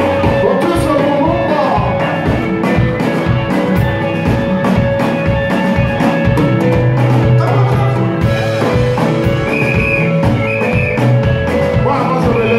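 A live African band playing through a PA: electric guitars and a drum kit keeping a steady beat.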